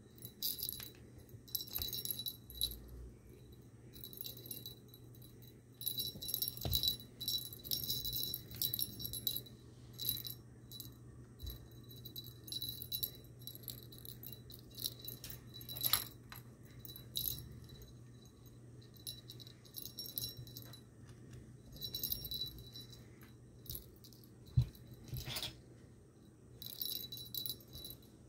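Small jingle bell on a string-and-pompom cat toy jingling in irregular bursts as a kitten bats and bites at it, with a few sharper knocks.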